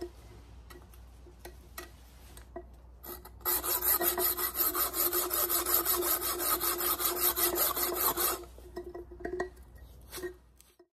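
Hacksaw blade sawing through the tip of a conch shell in rapid rasping back-and-forth strokes for about five seconds, with a steady ringing note from the shell underneath. Scattered knocks and scrapes from the shell and saw being handled come before and after the sawing.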